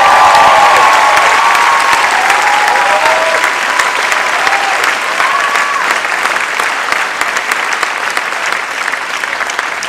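Theatre audience applauding, with whoops and cheering voices over the clapping in the first few seconds and again about five seconds in; the applause slowly dies down.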